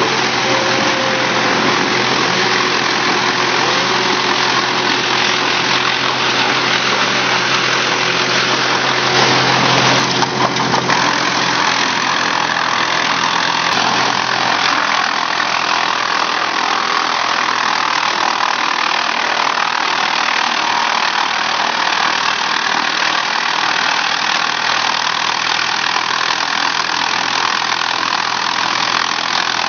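Wood chipper running steadily under power, its engine hum beneath a dense rushing noise, briefly louder with a few knocks about ten seconds in.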